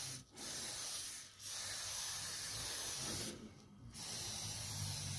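Aerosol cooking spray hissing from the can in four bursts with short breaks, as it is sprayed onto a grill plate.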